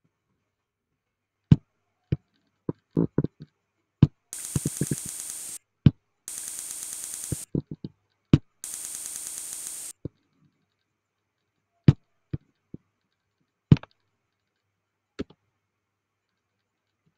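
Computer mouse clicking, single sharp clicks scattered irregularly, about a dozen in all. Three stretches of a steady, high, hissing whir, each a second or so long, sit between the clicks.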